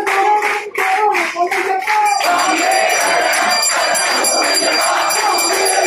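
A crowd of devotees chanting together with rhythmic hand-clapping, and about two seconds in a temple bell starts ringing continuously over the chant.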